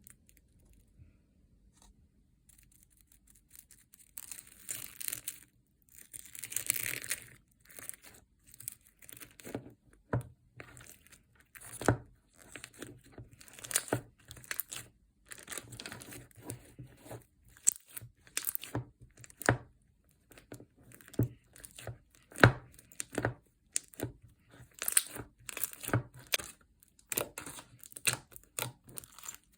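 Slime being squished and stretched by hand: irregular sticky crackling and crinkling with sharp clicks and pops, starting after about four quiet seconds.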